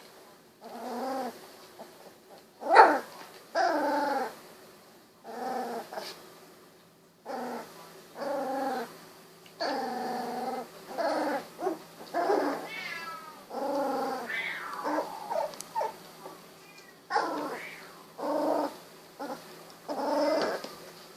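Sixteen-day-old golden retriever puppies crying and whining, a run of short high cries about one every second, some rising and falling in pitch. One sharp, loud yelp comes about three seconds in.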